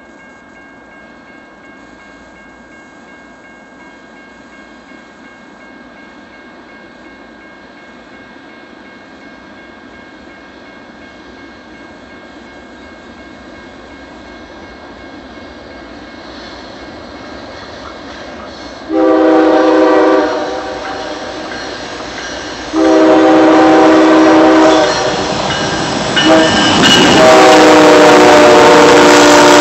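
A BNSF freight train's diesel locomotives approaching with a rumble that slowly grows louder, then sounding their multi-note air horn in long blasts: one about two-thirds of the way in, another a few seconds later, and a last one held as the locomotives pass close by.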